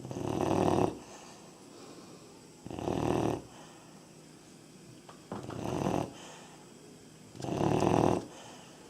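A 3.5-month-old Labrador retriever puppy snoring: four snores about two and a half seconds apart, each under a second long and swelling as it goes.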